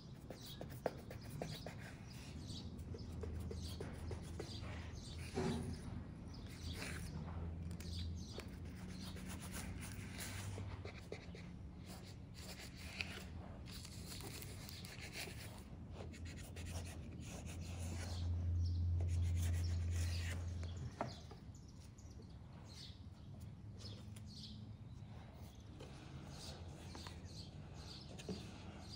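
Serrated kitchen knife scraping and cutting through soft bread dough on parchment paper over a wooden board, with small scrapes and paper rustles as the dough is handled. A steady low hum runs underneath and swells for a few seconds about two-thirds of the way through.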